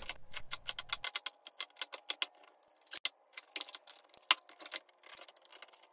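Quick runs of light clicks and taps: wooden strips being set in a glue-up and bar clamps being tightened across them. The clicks come fast at first, then sparser.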